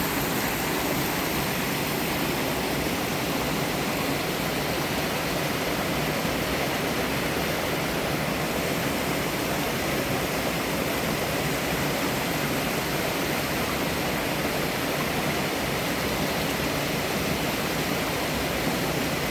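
Mountain-stream waterfall pouring steadily over moss-covered rocks: a constant, even rush of falling water.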